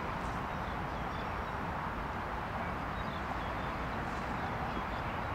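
Steady hum of distant road traffic, with faint short bird chirps now and then.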